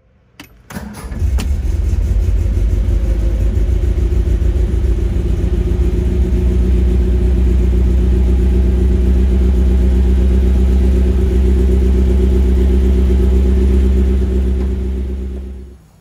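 1964 MGB's 1.8-litre B-series four-cylinder engine, fed by twin SU carburettors, on a cold start: a click and a brief crank, then it catches about a second in and settles into a steady idle, fading out near the end.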